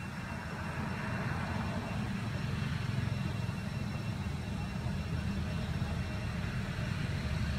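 Steady low rumble of background noise that grows a little louder over the first few seconds, with faint steady high-pitched tones above it.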